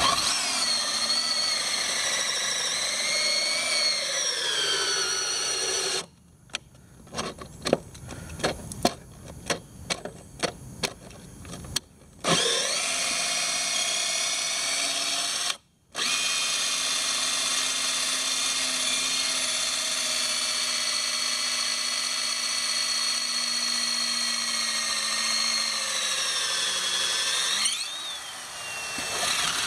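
Power drill boring through wooden boards with a long wood bit: a steady motor whine whose pitch sags as the bit bites. For several seconds it gives way to a string of sharp clicks, then the drill runs steadily again and slows near the end.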